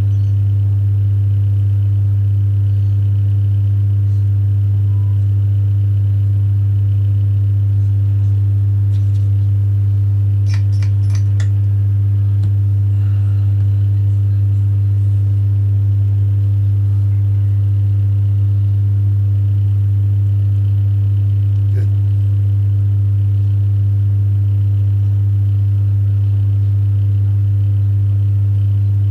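Steady, loud low electrical hum with fainter higher overtones, unchanging in pitch and level. About four quick faint clicks come about ten to eleven seconds in, and one more around twenty-two seconds.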